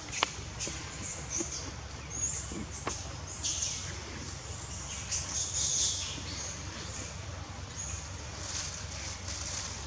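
Outdoor forest ambience: a steady low rumble under scattered short high-pitched sounds, with two faint clicks, one near the start and one about three seconds in.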